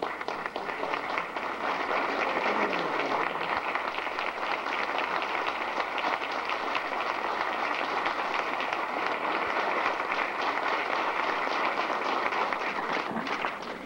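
Audience applauding steadily, a dense patter of many hands clapping, dying away near the end.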